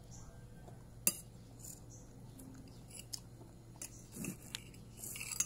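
A metal spoon clinking and scraping on a ceramic plate of rice while a child eats, with one sharp clink about a second in, a few lighter taps, and a short scrape near the end. Faint chewing between.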